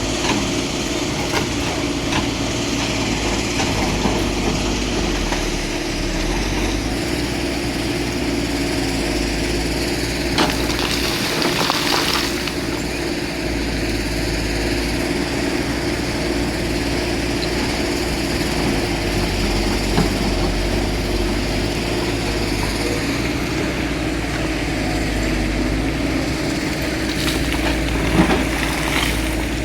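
Excavator's diesel engine running steadily under a continuous drone, with a short burst of scraping noise about eleven to twelve seconds in and a sharp knock near the end.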